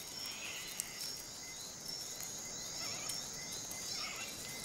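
Faint insect chorus: a steady high-pitched trill with short, higher chirps repeating about twice a second, and a few lower chirps.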